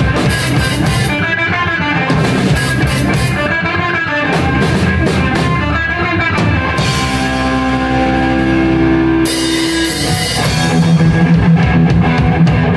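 Live rock band playing loud, with electric guitars and a drum kit. The drums beat steadily at first, then drop out about seven seconds in while the guitars hold long ringing chords. A cymbal wash and a loud sustained chord follow near the end.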